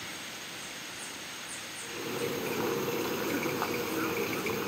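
Rainforest ambience: insects buzzing steadily at a high pitch, with a few short high chirps. About two seconds in, a louder low rushing noise sets in.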